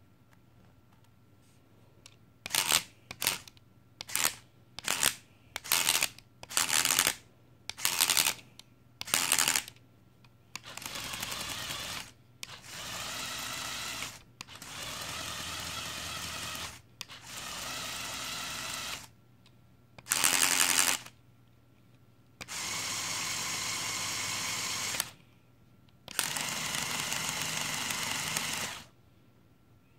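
Lego Technic drivetrain of L and XL electric motors, gears and a differential, switched on in pulses. First about eight short, loud bursts of gears straining and skipping as the two L motors, too weak to turn the differential and back-drive the unpowered XL motors, force parts out of place; then four steady runs of about two seconds as the XL motors turn the whole drivetrain, one brief loud burst, and two longer steady runs with all four motors powered.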